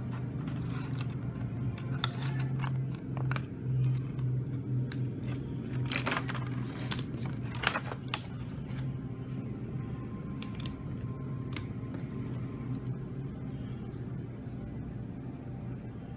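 Plastic blister packaging crinkling, with light taps and clicks as a toy bow tie and its button-cell batteries are handled, most busily about six to eight seconds in, over a steady low hum.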